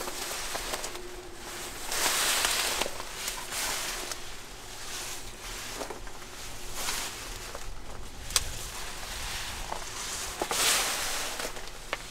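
Footsteps and rustling through tall dry grass in uneven swells, with a single sharp click about eight seconds in.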